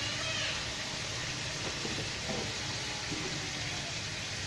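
Red snapper heads frying in oil in a pan, a steady sizzle.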